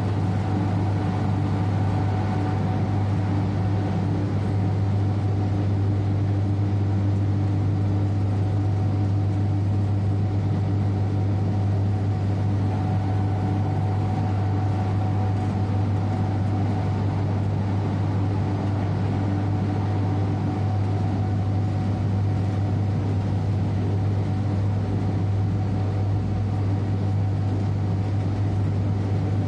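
Steady droning hum of a train running along the track, heard from inside the driver's cab of an electric locomotive, with a strong low hum and a couple of fainter steady higher tones.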